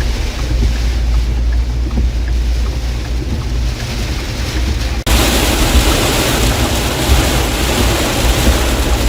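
Inside a car driving through a heavy thunderstorm: a low road and engine rumble under the hiss of rain on the car. About five seconds in, after a brief dropout, the hiss suddenly becomes much louder and brighter.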